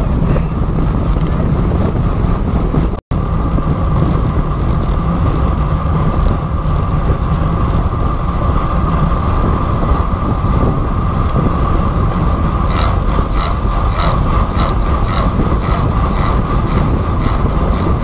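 Wind rushing over the microphone of a bike-mounted camera as a road bicycle rolls along at speed, a steady noise with a constant hum. It cuts out for an instant about three seconds in, and a run of quick ticks comes near the end.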